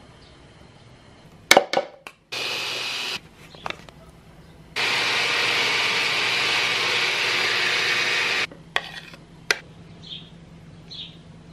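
Handheld immersion blender running in a plastic cup: a short burst of about a second, then a longer steady run of nearly four seconds, each switching on and off abruptly. A few sharp knocks come before and after.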